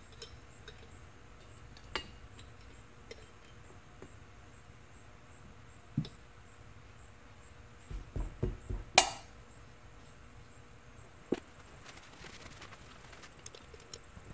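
Steel valves and tools handled on an aluminium Subaru EJ25 cylinder head during valve installation, making scattered metal clinks and taps. A few dull knocks come about eight seconds in, followed by one sharp clink, the loudest sound.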